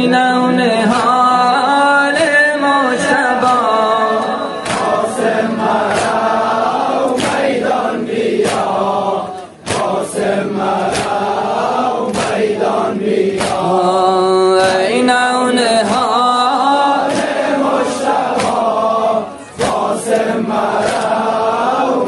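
A chanted Muharram lament (noha) in Dari over a regular beat, sung in long, wavering held notes, with two brief breaths between phrases.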